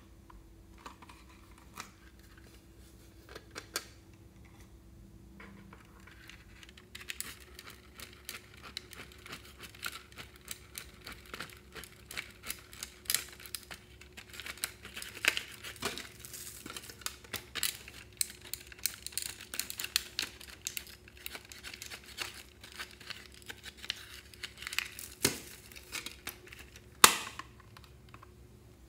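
A small plastic pick scraping and digging pressed pink powder makeup out of a plastic toy makeup palette: a dense run of small scratchy clicks lasting about twenty seconds. It ends with one sharp plastic snap as the case is shut.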